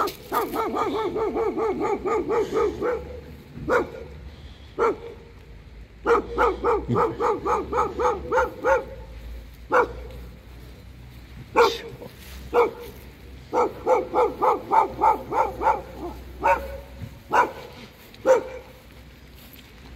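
A hound barking at another dog in three long runs of fast, high barks, with single barks between the runs. It is an angry hound charging at a malamute.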